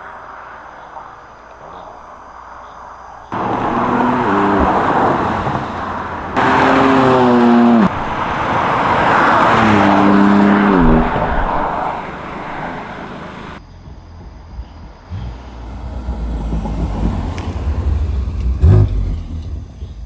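BMW F87 M2 engine under hard acceleration, its note rising in pitch several times over road and tyre noise. The sound changes abruptly a few times, as if separate runs are cut together.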